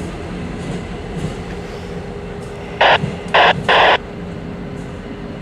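Train running on the rails with a steady low rumble. A little past halfway, three short, loud bursts of hissing noise cut in, one after another over about a second.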